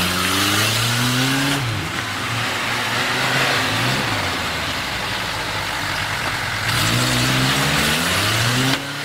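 Off-road vehicle's engine revving up and down under load, its pitch climbing in the first second and again near the end, with a loud hiss over it in stretches.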